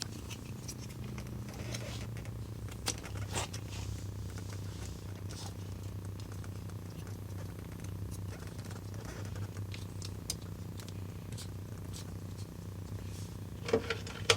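Faint scattered clicks and taps of a plastic bike-lock bracket and rubber gasket being handled and positioned on a bicycle frame, over a steady low hum.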